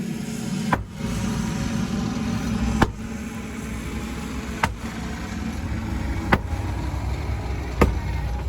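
Heavy machine's engine running steadily while it breaks out a concrete walkway, with five sharp knocks spaced about one and a half to two seconds apart.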